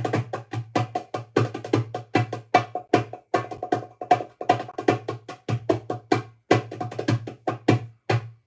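A drum played by hand in a fast, busy rhythm of sharp strikes, several a second.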